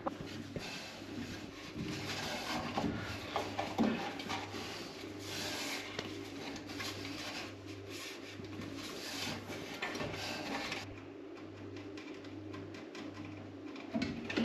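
Soft rubbing and scuffing as a cat and a hand move about on wooden stair treads, in uneven stretches over a low steady hum.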